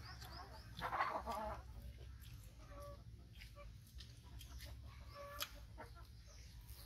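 Chickens clucking faintly, with one louder cluck about a second in and a few short calls later. A sharp tick comes near the middle, over a low steady hum.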